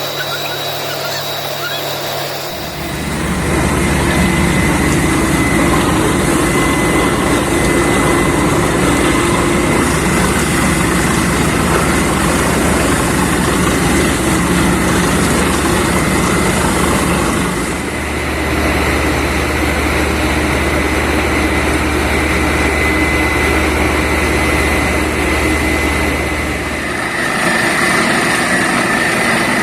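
Borewell drilling rig and its air compressor running loud and steady, with a thin high whistling tone over the machine noise. The sound shifts about three seconds in, again around eighteen seconds, and once more near the end.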